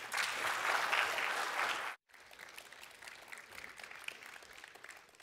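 Audience applauding. The clapping is loudest for about two seconds, breaks off abruptly, then goes on more faintly and dies away near the end.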